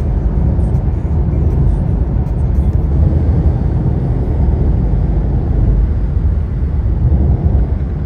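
Steady low road rumble heard from inside a car cruising on a highway: tyre and wind noise without a break.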